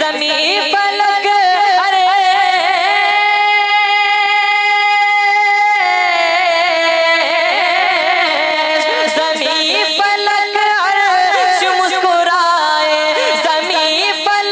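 Naat recitation: a boy's high singing voice over a PA system, drawing out long held notes with wavering ornaments. The note changes about six seconds in.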